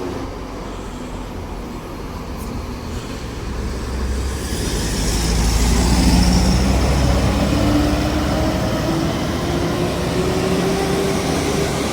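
Large coach bus engine driving past, its low rumble swelling about halfway through, while a whine rises slowly in pitch through the second half.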